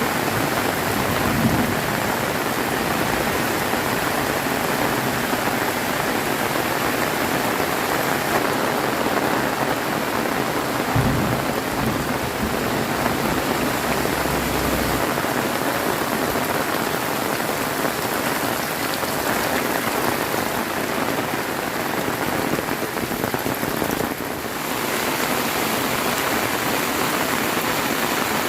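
Heavy rain pouring down steadily, a dense, even hiss of drops hitting surfaces, with a couple of brief low thumps.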